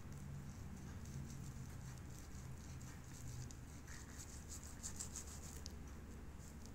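Kitchen knife sawing through a nori-wrapped sushi roll on a wooden cutting board: faint, quick scratchy strokes as the blade cuts the seaweed, densest about five seconds in.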